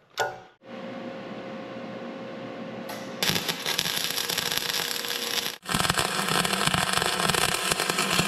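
Wire-feed welding arc from a Migmax 215 running .035 dual-shield (gas-shielded flux-core) wire, crackling steadily in two runs with a short break about five and a half seconds in. Before it, a single click and then a softer steady hiss for the first few seconds.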